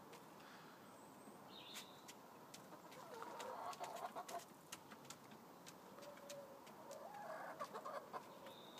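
Chickens clucking quietly: one run of clucks about three seconds in and another from about six seconds in, over scattered small clicks.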